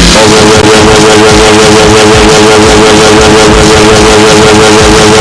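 The 'grounded scream' of grounded cartoons: a loud scream held on one steady pitch, deliberately distorted and clipped into a harsh buzz.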